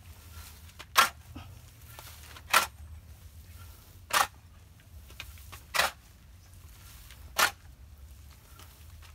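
A long-handled garden tool digging into a pile of chicken-manure compost, turning and mixing it. Five sharp strikes of the blade into the crumbly, lumpy pile come at an even pace, about one every second and a half.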